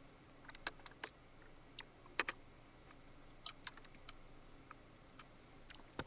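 Faint, scattered light clicks and ticks of a screwdriver working screws out of the back panel of a Digidesign 003 console, irregularly spaced, the sharpest about two seconds in.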